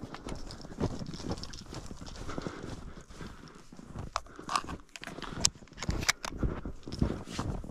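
Boots crunching through deep snow in a steady run of footsteps, with a few sharper clicks around five to six seconds in.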